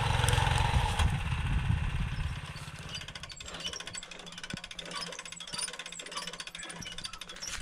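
A small engine running close by, loud for about the first two seconds, then quieter as a fast, even run of pulses.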